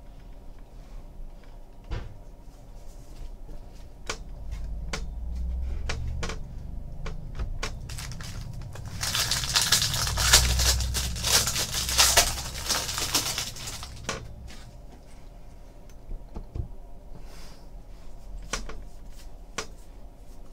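A trading card pack's foil wrapper crackling and tearing as it is ripped open, starting about nine seconds in and lasting some five seconds. Before and after it come light clicks and taps of a stack of cards being handled and flipped through.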